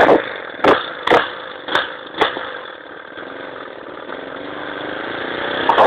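Lawn mower engine running unevenly. A run of sharp pops fades out over the first two seconds or so, then the engine runs quieter and picks up speed near the end.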